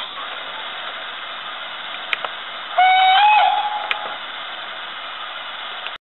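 Sound decoder (OKsound V4) in a Hornby Clan Class model steam locomotive playing steam sounds through its small tender speaker: a steady hiss of steam with a few sharp clicks, and a whistle blast about three seconds in that lasts under a second, stepping slightly in pitch. The sound cuts off abruptly just before the end.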